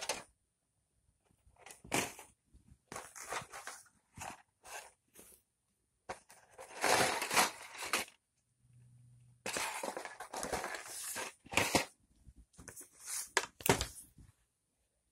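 Cardboard model-train kit boxes and a magazine handled by hand on a bed: a string of rustles, scrapes and light knocks as the packaging is picked up, turned over and set down, with longer rustling stretches about seven and ten seconds in.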